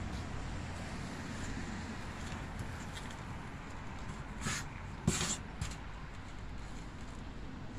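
Steady low outdoor rumble of open-air background noise, with a few short scuffing noises about halfway through.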